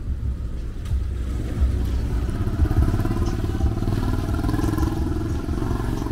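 Motorcycle engine running with street traffic rumble, its engine note coming in clearly about halfway through and holding steady.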